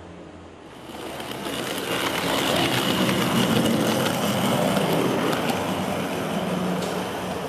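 O-scale model tram running past on its track: the electric motor's whine and wheels rolling on the rails swell to a peak mid-way and fade as it moves away.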